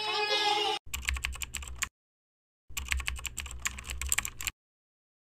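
Computer-keyboard typing sound effect: rapid key clicks in two runs, one about a second long and one about two seconds long, with dead silence between them.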